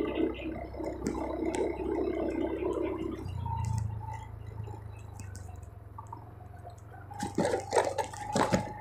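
Motorcycle engine running steadily at low riding speed, a low hum under road noise. From about seven seconds in, a run of knocks and rattles comes in as the bike goes over the rough stone surface.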